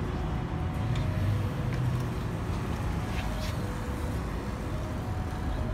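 Steady low outdoor background rumble of an urban street, with a few faint short high chirps.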